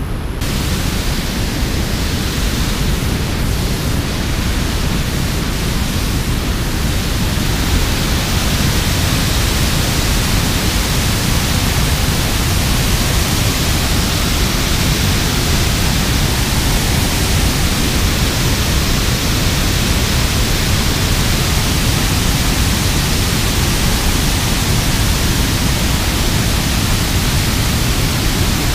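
Water pouring over a spillway and churning below it: a loud, steady rushing noise with no break, a little fuller in the high end from about seven seconds in.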